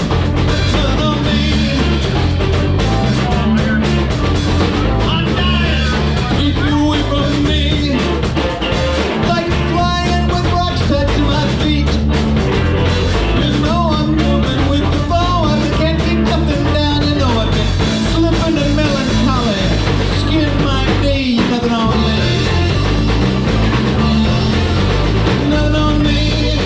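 Loud rock music with singing and a steady beat.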